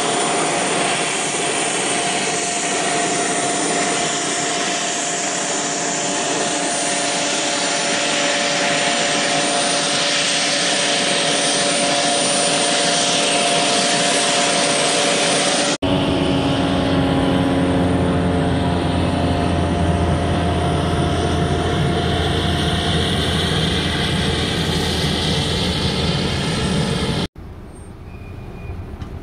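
Jet aircraft engines running loudly at close range: a steady roar with a high whine over it. After a cut the roar deepens and its tones slowly fall. Near the end it gives way to a much quieter, more distant engine sound.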